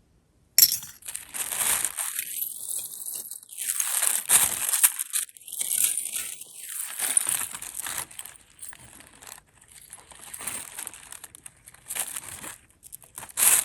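Hands rummaging through a lot of costume jewelry, plastic bags and packaging crinkling and rustling with small clicks of the pieces. It starts suddenly about half a second in, dies down for a while, and ends with a louder crinkle.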